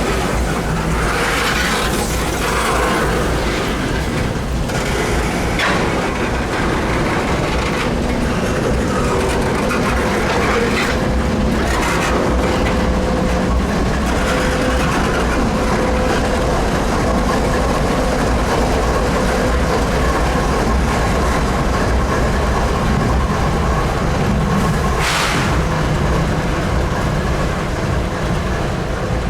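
Canadian Pacific freight train rolling slowly past, a steady rumble of wheels on rail with a faint held squeal tone and occasional knocks from the cars.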